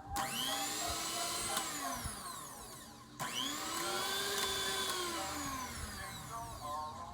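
Electric kitchen mixer motor running in two runs of about three seconds each, with a brief stop between them. In each run the whine rises in pitch as the motor speeds up and then sinks as it slows.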